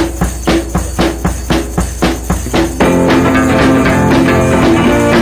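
Music: a steady beat of percussive hits, about four a second, then about three seconds in the rest of the band comes in with held, pitched notes.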